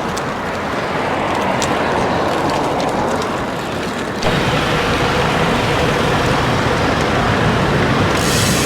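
Street noise with scattered clicks. About four seconds in it gives way abruptly to a steady, louder rumble of road traffic.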